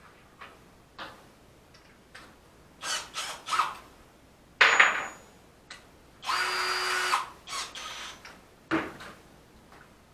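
A power drill runs in one short steady burst of about a second, a little past the middle, among several separate knocks and scrapes of tools and materials being handled.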